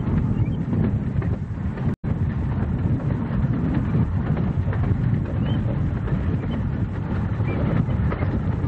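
Miniature railway train running on its 15-inch gauge track, a steady low rumble throughout. The sound cuts out for an instant about two seconds in.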